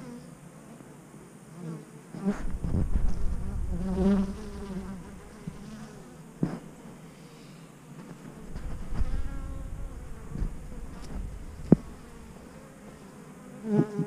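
Honeybees buzzing as they fly in close past a birdbath and land to drink, the buzz rising and fading with each pass. Two spells of low rumble run under it, and there is a single sharp click near the end.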